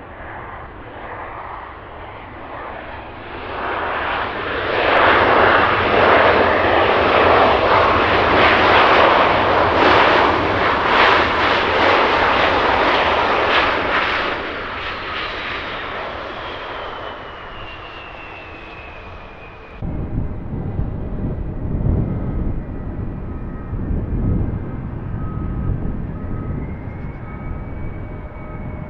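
Embraer E175's twin turbofan engines as the jet passes close overhead: the sound builds to a loud peak, then fades with a falling whine. About two-thirds of the way in it cuts abruptly to a lower, rumbling aircraft sound with steady whining tones.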